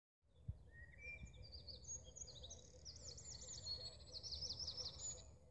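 Early-morning songbird chorus: several birds singing at once, faint rapid runs of high chirps and trills at different pitches, cutting off abruptly near the end.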